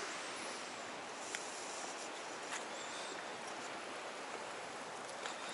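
Stream water rushing steadily over a rock ledge, with a few faint clicks.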